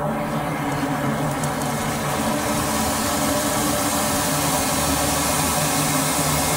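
An engine-driven high-pressure drain-cleaning washer running steadily while its hose jets inside a blocked drain pipe. Water rushes out of the pipe into the catch basin, a hiss that grows louder about two and a half seconds in.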